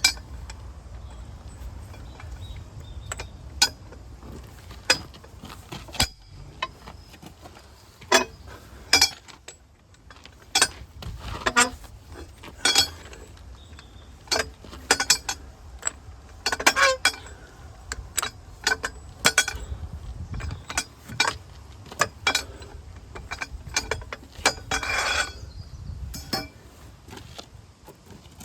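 Irregular metallic clinks and knocks of hand tools working on metal truck parts, some of them ringing briefly, with a longer ringing scrape near the end. A low steady rumble runs underneath.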